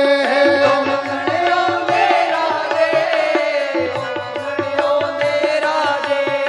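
Instrumental interlude of a Punjabi devotional song: a held, gliding melody over a steady hand-drum beat of a few strokes a second.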